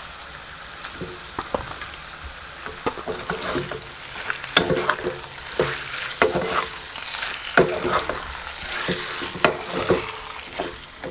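Chicken pieces sizzling in hot oil with onion in a non-stick kadai, stirred with a wooden spatula. The spatula makes repeated scraping knocks against the pan, coming thicker from about four seconds in.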